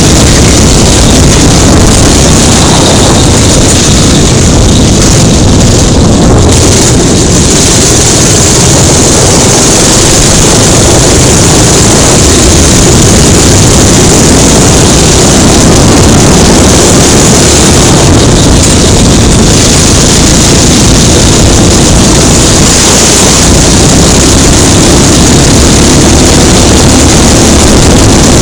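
Go-kart engine running at speed, heard from on board the kart: loud and steady.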